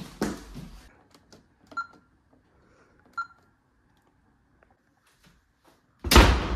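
Two short beeps about a second and a half apart, then a loud slam near the end as a door shuts.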